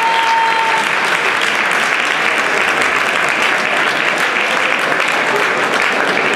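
Audience applauding steadily, a dense wash of clapping. A held tone dies away under it within the first second.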